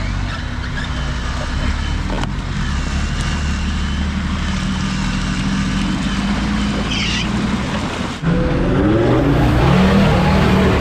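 Off-road vehicle engine running steadily at low revs. About eight seconds in it gets suddenly louder and revs up and down repeatedly, its pitch rising and falling.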